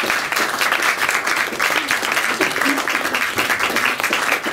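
Small audience applauding: many hands clapping in a dense, steady patter.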